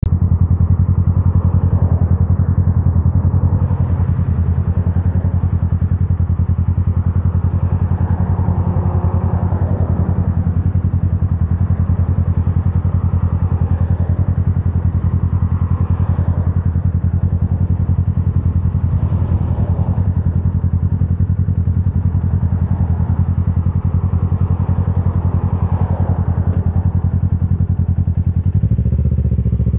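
Motorcycle engine idling steadily with a low, even note; the note shifts slightly near the end.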